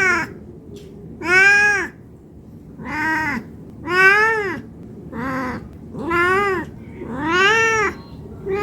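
Domestic cat meowing over and over, about seven meows in a row at roughly one a second, each rising then falling in pitch: a hungry cat asking for food.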